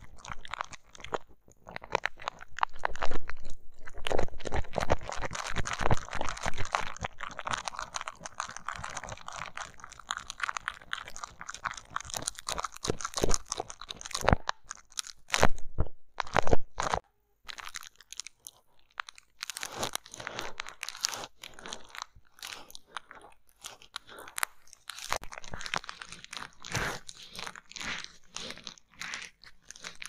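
Close-miked crunchy crackling and clicking of a metal-tipped extraction tool picking and pressing at small mock acne pads on bubble wrap. It is dense for the first half, has a few sharp, loud clicks around the middle, then turns sparser and softer.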